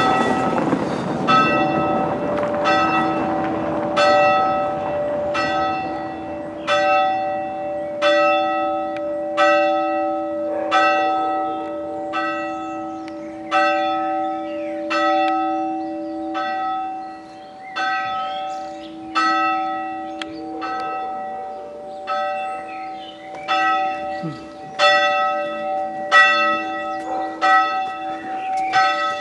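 A single church bell struck by hand and tolled steadily, about one stroke every 1.3 seconds, each stroke ringing on under the next at the same pitch.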